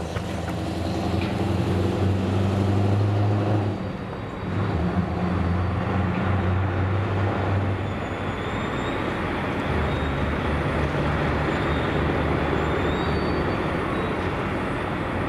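Scania 164 580's V8 diesel engine running under load with a steady deep drone. The drone breaks off briefly about four seconds in, then comes back, and from about ten seconds it runs on lower in pitch.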